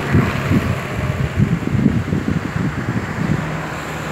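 Wind buffeting the microphone: uneven low rumbles over a steady background noise, easing off a little near the end.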